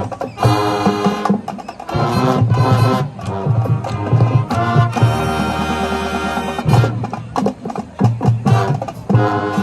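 High school marching band starting its field show: brass chords punctuated by drum hits, with one long held chord about five seconds in.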